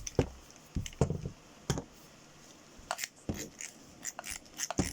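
Headphones being handled: a string of short, irregular clicks and knocks.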